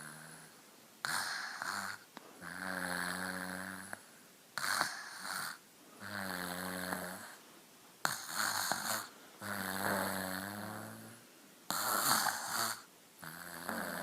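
A sleeper snoring in slow, regular breaths: about four cycles, each a short breathy rush followed by a longer, pitched, rattling snore.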